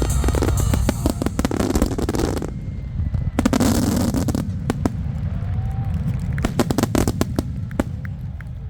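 Aerial fireworks finale: a dense barrage of bangs and crackling for the first couple of seconds, another crackling burst about three and a half seconds in, then scattered single reports thinning out toward the end, over a steady low rumble.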